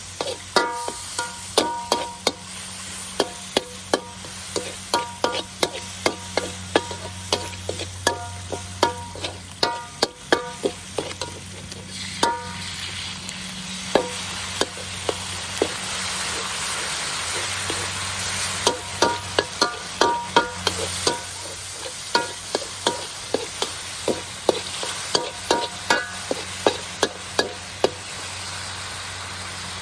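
A metal spatula repeatedly scraping and clanking against a steel wok while stir-frying, with the sizzle of the frying food underneath. The sizzle grows louder for a while in the middle.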